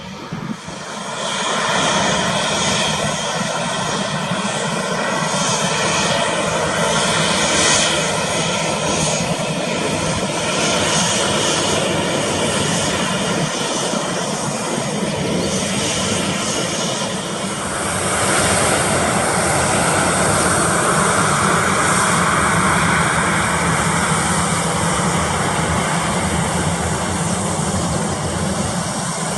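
Airliner engines at takeoff power: loud engine noise swells about a second in and holds steady, with whining tones over a rushing noise, which turns broader and more hissing about two-thirds of the way through as the aircraft passes.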